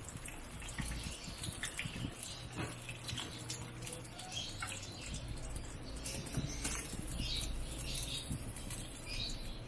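Chicken wings deep-frying in hot oil in a wok: a steady sizzle with many small crackling pops scattered through it. This is the frying sound the cook listens for as the sign that the wings' first fry is done.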